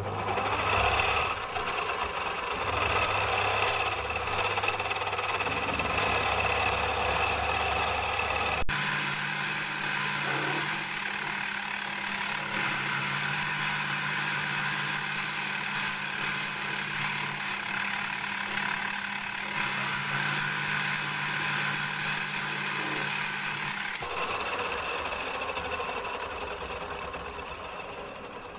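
Mini lathe running, its motor and gear train making a steady whine while a round-nose high-speed-steel tool turns the cast tailstock handwheel held in the chuck. The tone changes abruptly about nine seconds in and again a little after twenty seconds. After that the sound fades away as the spindle winds down.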